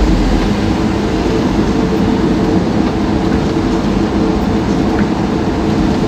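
Steady engine and road noise from a moving vehicle.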